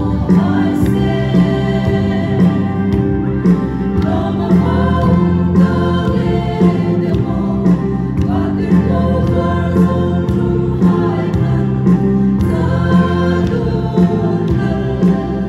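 Women's choir singing a hymn together.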